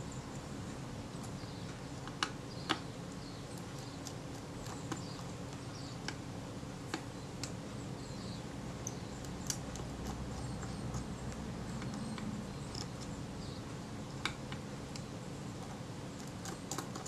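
Small screwdriver working the screws that hold a Kodak Retina IIIS camera's film advance shaft: sparse faint metal clicks and scrapes, over a low steady hum.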